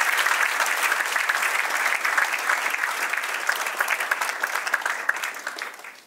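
Audience applauding: many hands clapping together, thinning out and fading away near the end.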